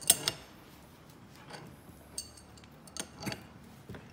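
Sharp metallic clicks and clinks as a bearing puller draws a preloaded bearing off a surface grinder spindle: a quick cluster of three at the start, then a few single clicks spread through the rest.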